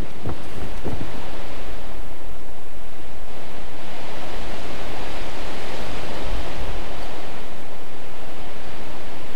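Strong wind blowing across the microphone: a loud, steady rush of wind noise.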